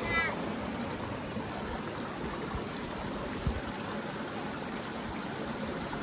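Shallow forest creek running over rocks and small cascades: a steady, even rush of water.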